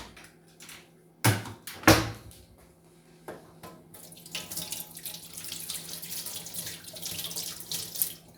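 Two sharp knocks about half a second apart, then a kitchen tap runs steadily for about four seconds and is shut off near the end.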